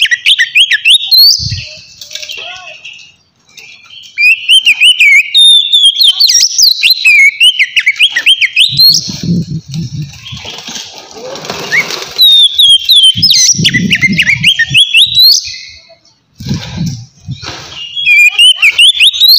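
Oriental magpie-robin singing in phrases of quick, sweeping whistled notes in the clear 'ngeplong' style, with short pauses between phrases. Low rustling thumps come three times in between, around the middle and near the end.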